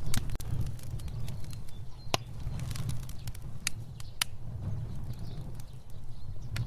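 Fire burning: a low steady rumble of flames with sharp crackles and pops scattered irregularly through it, the loudest about two seconds in and around four seconds.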